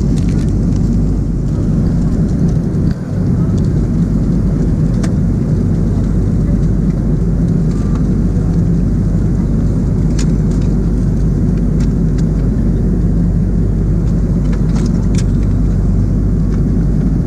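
Steady cabin drone of an Airbus A330-200 in flight, engine and airflow noise, heavy in the low end. A few light clicks of plastic meal-tray items being handled sound over it.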